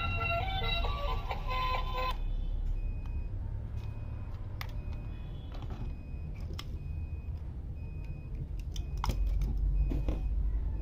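Background music stops about two seconds in. After that, a steady series of short, high electronic beeps repeats about three times every two seconds over a low rumble, with a few clicks.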